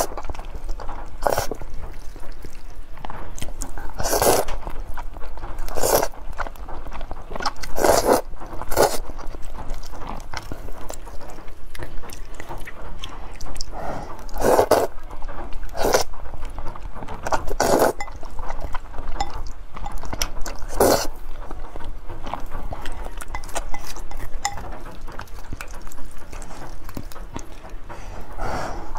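Close-miked mukbang eating: loud slurps of thick spicy Korean fire noodles every few seconds, with wet chewing in between.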